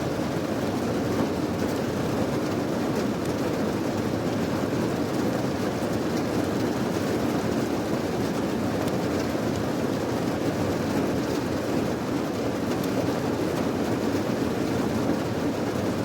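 Steady heavy rain: an even, unbroken rushing noise weighted toward the low end, with faint scattered drop clicks.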